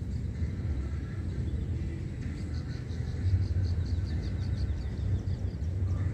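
Outdoor ambience with a steady low rumble. A bird calls in a quick run of high chirps from about two seconds in.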